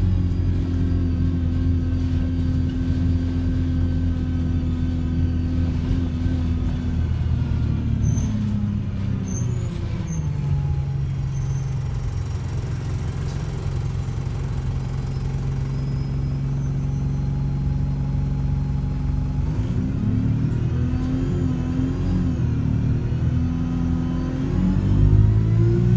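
Bus engine and drivetrain heard from inside the passenger saloon while driving: a steady drone that drops in pitch about a third of the way in as the bus slows, holds low, then rises and wavers again near the end as it pulls away and accelerates.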